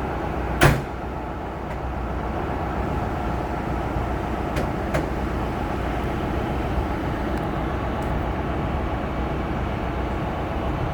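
Steady low rumble of an Amtrak passenger train at the station, with one sharp knock less than a second in and a couple of faint clicks midway.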